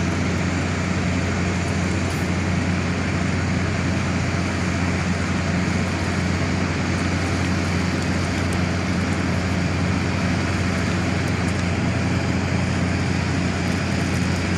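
Steady rushing noise over a constant low hum.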